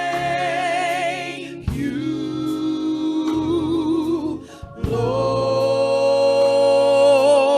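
Gospel worship singing: voices hold long notes with vibrato in three drawn-out phrases, over a low sustained tone.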